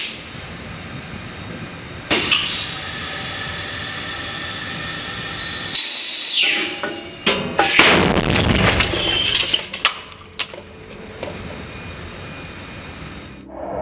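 Combustion tube firing with a sharp, loud bang about eight seconds in, followed by a few seconds of clattering as the shattered computer's plastic and glass scatter across concrete. Before the blast there are several seconds of a loud high whine that slowly falls in pitch.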